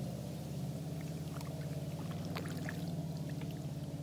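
Kayak paddling on calm water: small drips and light splashes from the paddle blades, over a steady low hum.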